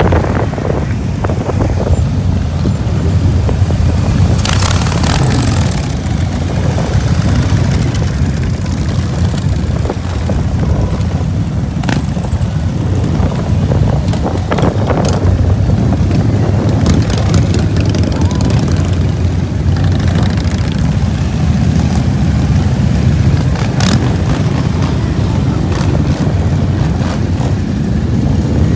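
Motorcycle running at riding speed, a steady low engine drone mixed with wind rumble on the microphone.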